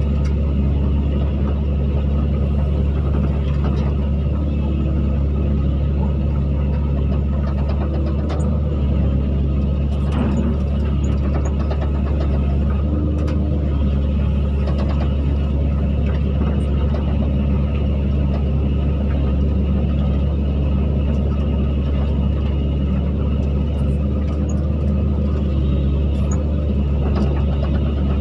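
Excavator's diesel engine running steadily, a deep, even drone with no revving.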